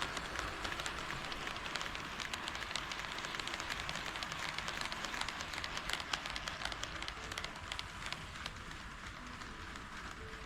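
HO scale model train running along KATO Unitrack: a steady running hiss with many small irregular clicks from the wheels on the rails and joints, growing a little fainter near the end.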